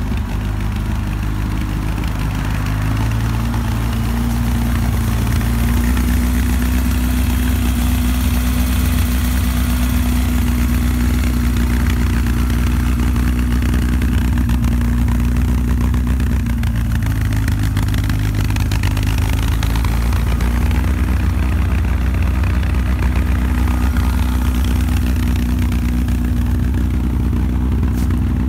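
Robin Hood kit car's rebuilt Ford Pinto four-cylinder engine, bored out to 2.2 litres, idling steadily, its idle speed shifting slightly a few times.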